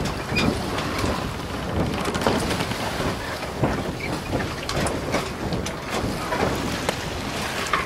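Wind and water noise: a steady rushing with frequent small crackles.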